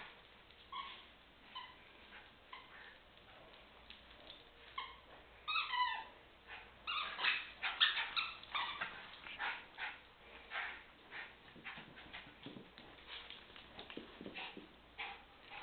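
Cairn terrier making short high whines and yips while playing, one call sliding down in pitch about halfway through. A run of quick clicks and taps follows and thins out toward the end.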